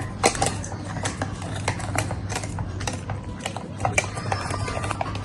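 A liquid mixture being stirred in a container, the stirrer clicking and tapping irregularly against its sides, a few knocks a second.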